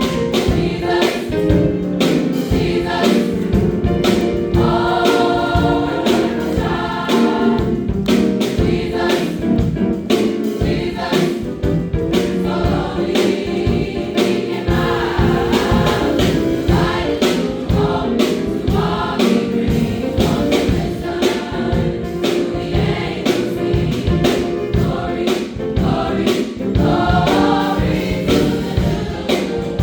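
High school choir singing a gospel-style song with band accompaniment and a steady beat.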